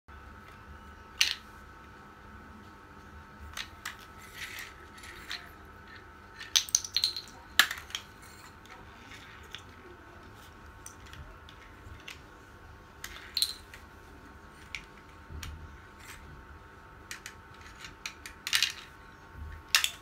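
Small plastic toy trucks being handled and set down on a tiled floor: scattered clicks, knocks and short rattles of hard plastic, a few louder clusters, over a faint steady hum.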